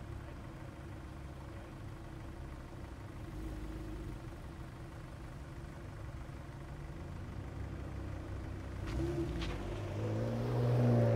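Mercedes-Benz Vito van's engine running as the van rolls slowly past at low speed, growing louder near the end as it comes close.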